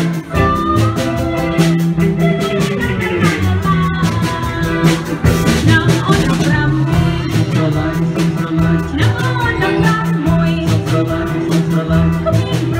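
Live Cambodian pop band: a woman singing into a microphone over electronic keyboards, electric guitar and a drum kit keeping a steady, even dance beat.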